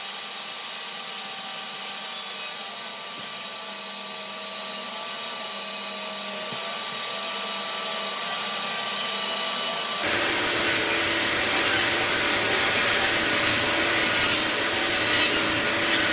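Table saw running and cutting a rabbet joint in a wooden board. About ten seconds in, the sound turns abruptly louder and fuller.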